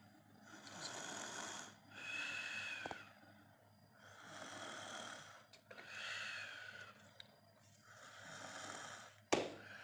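Young child snoring in sleep: noisy breaths in and out in a steady rhythm, about one full breath every three to four seconds, some with a faint whistle. A sharp click sounds near the end.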